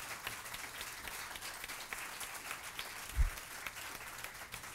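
Audience applause: many hands clapping in a dense patter, with a single low thump about three seconds in.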